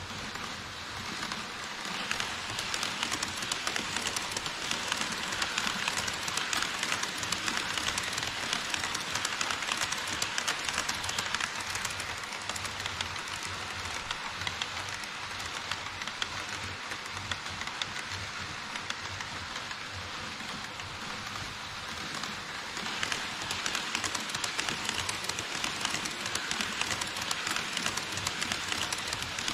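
HO scale model trains running over KATO Unitrack across a model truss bridge: a dense, even rattle of small metal wheels clicking over the rails, growing louder a couple of seconds in and again near the end as a second train, an E5 shinkansen model, comes through.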